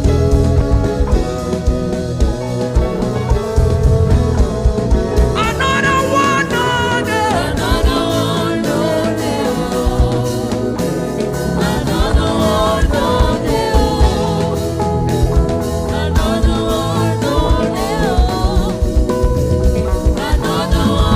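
Live gospel worship band music with drums and guitar, holding sustained chords over a steady beat; a melody line, wavering like a voice, comes in about five seconds in.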